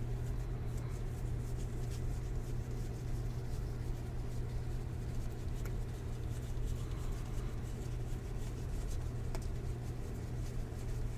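Trading cards being slid and flipped through by hand, a soft papery rustle with a couple of light ticks, over a steady low electrical hum.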